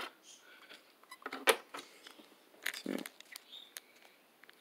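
A few scattered sharp clicks and taps of handling on a table, the loudest about a second and a half in, with a short soft thump near three seconds.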